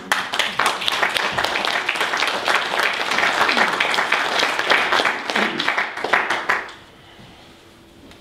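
A congregation applauding, a dense patter of many hands clapping that dies out about seven seconds in.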